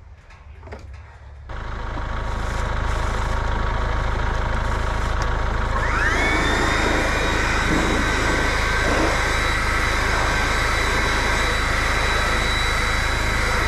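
Wood-Mizer LT15 Wide portable band sawmill running: its motor comes on loud about a second and a half in, a whine rises about 6 s in and then holds steady, and the sound cuts off abruptly near the end.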